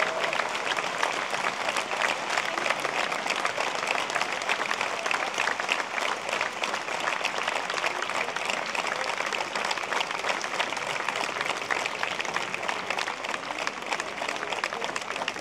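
Audience applause: dense, steady clapping from a crowd, easing a little near the end.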